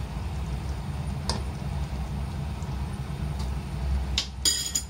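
Metal spoon clinking against a wok of tofu and fish in sauce: a sharp click about a second in and another near the end, the last followed by a brighter ringing clink. A steady low hum runs underneath.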